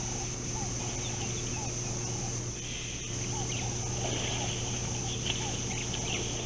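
Helmeted guineafowl calling: a short note repeated about twice a second. About two and a half seconds in, harsher, higher chattering calls from the flock join it.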